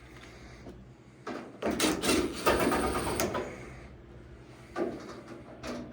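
Cordless driver with a bit running in bursts, backing screws out of a dryer's sheet-metal cabinet: a longer run in the middle and a shorter one near the end.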